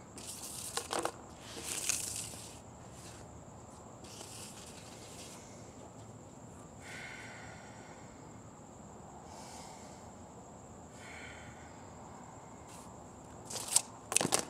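Crickets chirping in one steady high-pitched trill. Boots scuff and step on concrete, and near the end come sharp clatters as a hula hoop is kicked up off the driveway.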